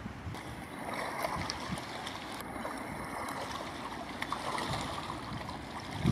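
Wind-driven chop lapping and splashing at the water's edge: a steady rushing wash broken by small splashes, with wind across the microphone.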